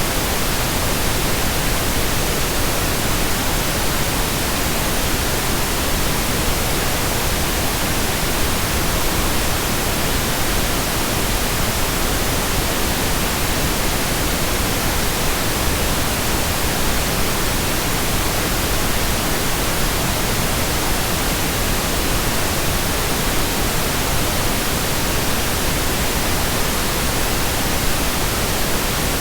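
Steady pink noise: an even, unchanging hiss spread across the whole range of pitch, with no breaks or events.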